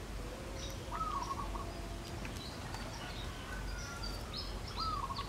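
Birds calling in the background: scattered short high chirps and a couple of whistled notes that rise and dip, over steady low outdoor noise.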